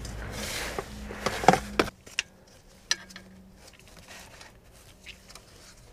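A few light clicks and taps from hands handling parts under a car, over a steady hiss and low hum that drops away abruptly about two seconds in, leaving only faint scattered clicks.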